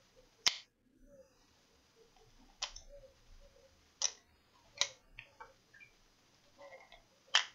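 Five sharp, separate clicks at uneven intervals, the first the loudest, with quiet between them: hands handling small parts and tools.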